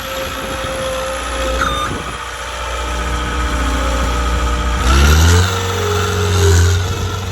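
John Deere 320D skid steer's diesel engine running, then revved up sharply about five seconds in and held at higher speed.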